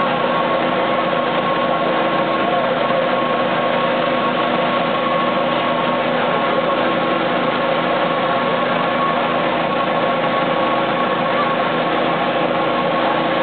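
Steady mechanical hum with several held tones, mixed with the sizzle of dough deep-frying as it is extruded in a coil into a large pot of hot oil.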